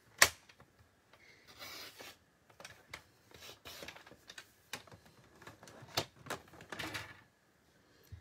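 Large paper trimmer in use: sharp clicks and taps as paper is lined up and the cutting arm handled, with a few short scraping swishes as the blade runs through the paper.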